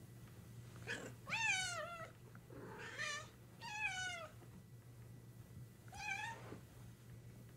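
Cat meowing repeatedly: a short meow about a second in, then three drawn-out meows that rise and fall in pitch over the next few seconds, and one more meow about six seconds in. A steady low hum lies underneath.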